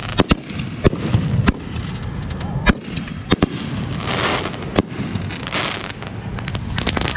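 Fireworks going off: a string of sharp bangs every second or so, with two stretches of hissing in the middle.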